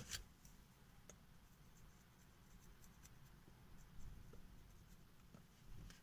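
Near silence in a car cabin, with a few faint soft clicks from puffing on a tobacco pipe.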